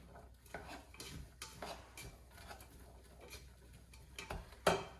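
A utensil stirring peppers, onions and garlic in a pan, scraping and tapping against it in irregular short strokes, with one louder knock near the end.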